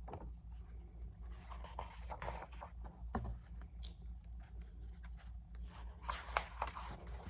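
Faint, scattered rustling and brushing of paper: the pages of a picture book being handled and turned.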